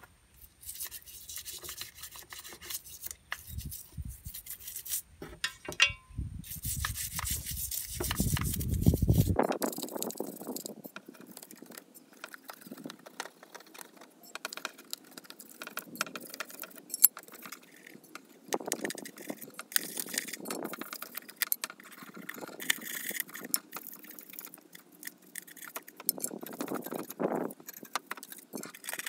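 Metal tools and carburetor fittings clinking and scraping as the hoses and parts of a Honda Dio scooter's carburetor are worked loose by hand, in many short, irregular clicks.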